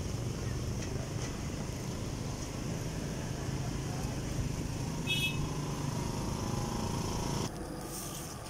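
Street ambience of road traffic and a busy roadside market, with a short high horn toot about five seconds in. The background drops abruptly shortly before the end.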